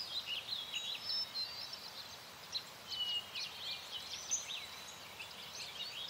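Small birds chirping in quick, high notes, with a brief held whistle about two and a half seconds in.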